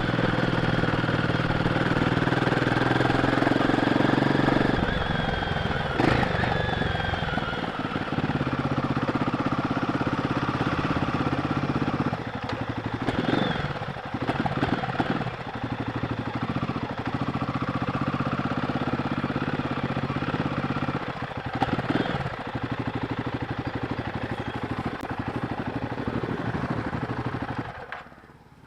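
Royal Enfield Guerrilla 450's single-cylinder 452 cc engine running through its stock exhaust at low speed, the pitch shifting with the throttle and a steady low thumping pulse. The sound falls away sharply just before the end.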